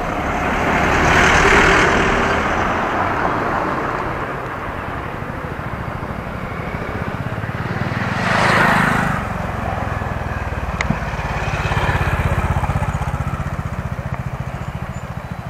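Motorcycle engine running at low road speed with a steady pulsing rumble. A truck passes close about a second and a half in, the loudest moment, and a second vehicle rush goes by just past the middle.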